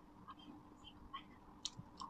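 Faint scattered clicks of a metal spoon scooping rice and lettuce from a stainless steel plate, with one sharper click near the end.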